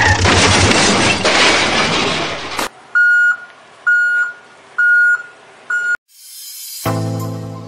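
Added sound effects: a loud noisy crash-like clatter for about two and a half seconds, then four electronic reversing beeps about a second apart, like a truck's backup alarm. Music comes in near the end.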